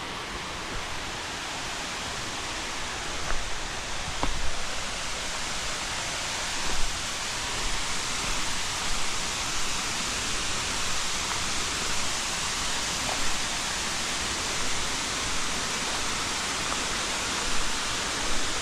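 A waterfall rushing steadily, with a few brief low thumps from the microphone a few seconds in.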